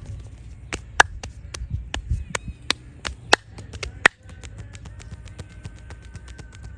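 Quick, uneven run of sharp hand strikes from a percussive head and back massage, slapping and chopping strokes, with three much louder cracks among them; it breaks off abruptly about four seconds in. Softer tapping strokes and soft background music with held tones continue behind.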